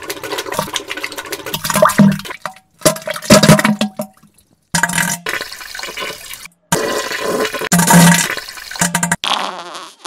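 Diarrhea sound effects: a string of wet, sputtering, splattering bursts with short low fart-like blasts, cut apart by a few abrupt silences between clips.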